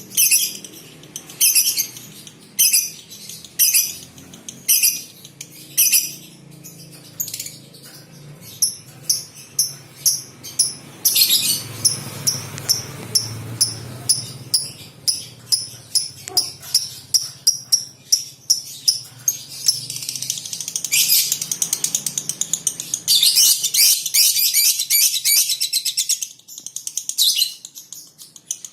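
Lovebird calling: sharp, high chirps about once a second that quicken to about two a second, then run into a long rapid buzzing trill for about six seconds near the end.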